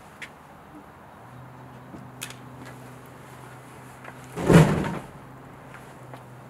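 Methane–air mixture igniting and exploding inside a small clear test box: one loud, low rushing bang about four and a half seconds in, lasting around half a second. Before it come a few faint clicks and a low steady hum.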